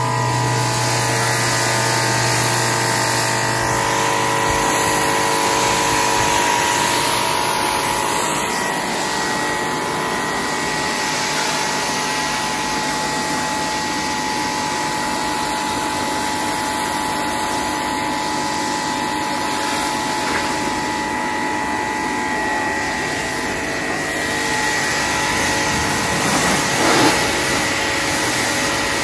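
Greenworks Pro 2300 electric pressure washer running steadily with its motor and pump whining, and the water jet hissing as it sprays.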